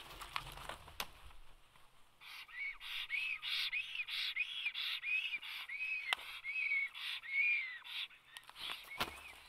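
Black storks scuffling on their stick nest, with a few knocks and rustles, then a black stork calling in aggression: a run of about nine wheezy whistled notes, each rising and falling, a little under two a second.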